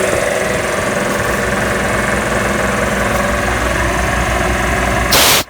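Magna Force two-stage air compressor running steadily, its pump giving a fast, even low pulsing. Near the end comes a short loud burst of hiss, and then the sound cuts off sharply.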